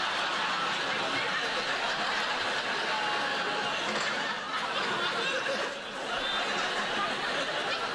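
Studio audience laughing in one long continuous wave, dipping briefly about six seconds in.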